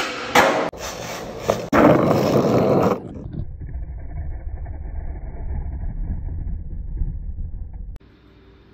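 Skateboard rolling over concrete, loud, with several sharp clacks of the board, echoing in a concrete tunnel. About three seconds in it gives way to a steady low rumble.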